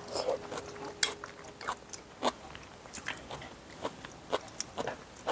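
Close sounds of eating: chewing and lip smacks, with scattered light clicks of a spoon against a bowl.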